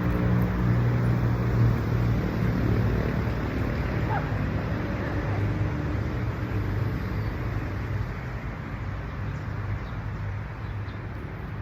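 A steady low engine hum of a vehicle, slowly fading, over outdoor road noise.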